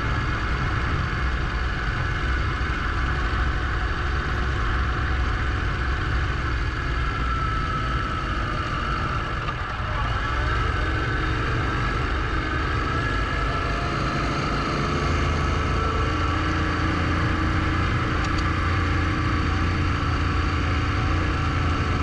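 Adventure motorcycle riding along, its engine running steadily under way with wind and road noise; the engine note shifts briefly about halfway through.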